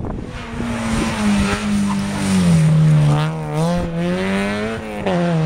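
Rally car engine running hard on a loose dusty stage, its pitch dropping about two seconds in and climbing again near the end as the revs fall and rise.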